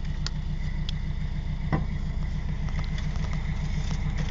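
Narrowboat's diesel engine idling, a steady low even chugging, with a few faint light clicks over it.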